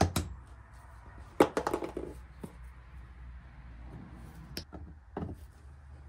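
Side cutters snipping the zip ties off a coiled bandsaw blade, with a few short sharp clicks and light rattles of the steel blade shifting on cardboard.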